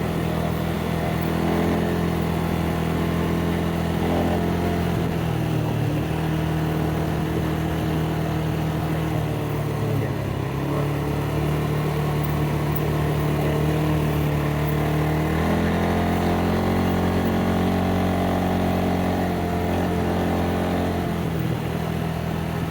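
ATV engine running under way, its pitch shifting up and down with the throttle: it dips around ten seconds in, rises about fifteen seconds in and drops again near the end.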